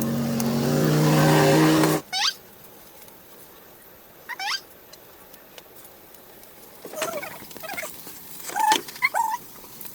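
A motor vehicle's engine for about two seconds that cuts off suddenly, followed by scattered faint high squeaks.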